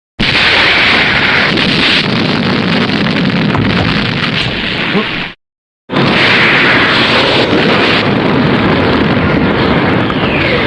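Two tokusatsu sound effects, each a loud, dense rumbling noise lasting several seconds, split by half a second of silence about five seconds in; a falling whistle cuts through the second one near the end.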